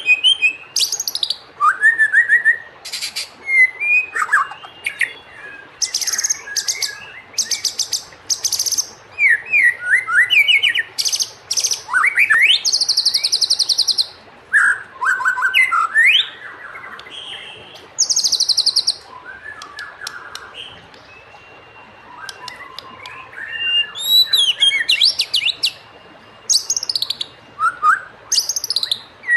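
White-rumped shama (murai batu) singing a varied song of whistled notes and pitch glides, broken by fast rattling runs of repeated high notes, with a quieter lull about two-thirds of the way through.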